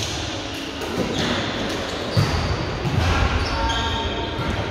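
Echoing sports-hall noise from an indoor volleyball game: a few sharp knocks of a ball being hit or bounced over a steady wash of distant voices and movement.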